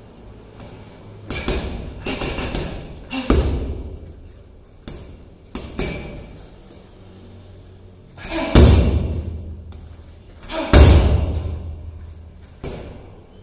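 Muay Thai heavy bag being struck again and again, about eight irregular heavy thuds, each trailing off with echo, the two hardest about two-thirds of the way through.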